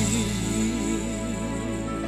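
Instrumental passage of a Brazilian gospel song: a held low bass note under a gently wavering melodic line.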